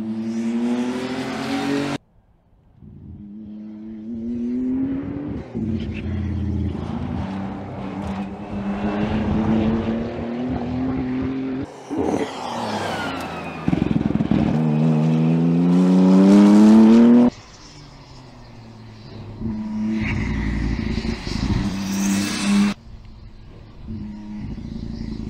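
BMW M4 GT3 race car's twin-turbo straight-six accelerating hard on track, its pitch climbing through each gear and dropping back at the shifts, across several edited shots. The loudest is a long rising pull about two-thirds of the way in, which cuts off suddenly.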